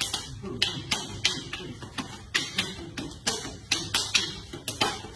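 Escrima sticks clacking together in quick, sharp strikes, about three a second, as two players trade strikes and counters in a Sumbrada flow drill.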